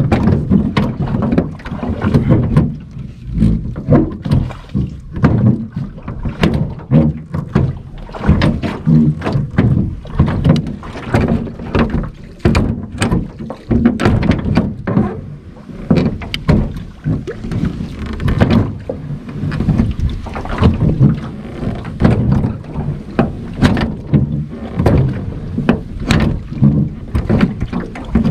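Rowing a small metal jon boat with wooden oars: the oars knock and clunk in their metal oarlocks many times, in an uneven rhythm, over a low rumble from the strokes.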